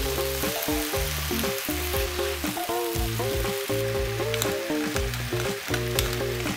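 Diced vegetables sizzling in oil in a frying pan, stirred with a spatula at first, then a pepper mill grinding over the pan with a crackle of clicks about four to six seconds in. Background music with sustained notes plays throughout.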